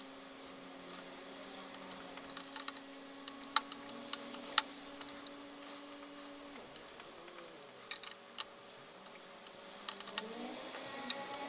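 Light clicks and ticks of wires and a plastic plug-in screw-terminal block being handled and fitted on a stepper motor driver, with a sharper cluster of clicks about eight seconds in. A faint steady hum runs underneath and stops a little past halfway.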